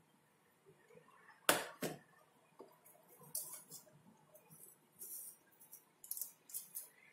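A sharp tap and a second click from a metal spatula on foil about a second and a half in, then aluminium foil crinkling in several short bursts as it is handled.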